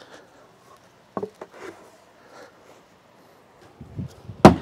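A few light wooden knocks, then a thrown hatchet strikes the wooden 2x4 target board with one sharp, loud thunk near the end.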